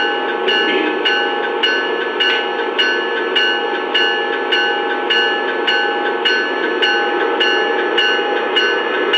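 Lionel Amtrak Acela model locomotive's sound system ringing its bell, about two strikes a second, over a steady electric hum as the train starts to pull away.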